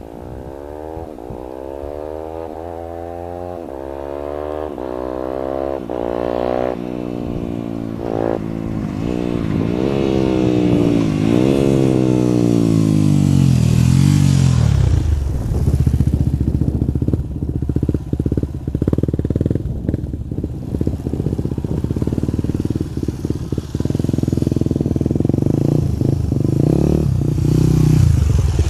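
Yamaha WR250X single-cylinder motorcycle engine through an N Project twin slip-on exhaust with the baffles removed, so it runs loud. The revs rise and fall in repeated surges as it comes closer and grows louder. About halfway through, the pitch drops sharply and the engine settles into a loud, low, steady rough running.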